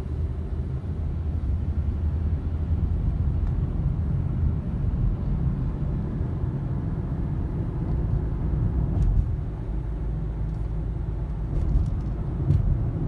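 Road and engine noise heard inside a moving car: a steady low rumble, with a few faint clicks in the last few seconds.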